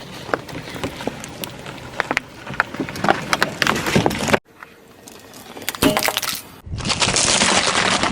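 Objects cracking and crunching as they are crushed: a fast run of sharp snaps and cracks. After a sudden cut, a single louder crunch comes about six seconds in, then a dense crackling hiss near the end.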